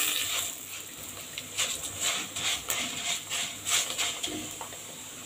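Raw rice grains frying in hot oil in a pot: a steady sizzle, with the irregular scrape and rustle of a silicone spatula stirring the grains. The rice is being toasted golden in the oil before cooking.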